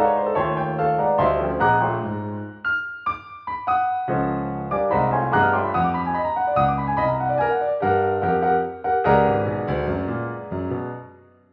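Solo piano playing a reduction of an atonal orchestral film cue: quick ascending and descending note runs over low sustained chords. The music fades out near the end.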